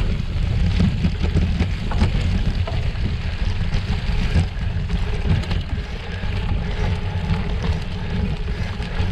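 Gravel bike ridden over a rough snowmobile trail: a steady rumble of wind buffeting on the microphone and tyre noise, with scattered knocks and rattles from the bumps.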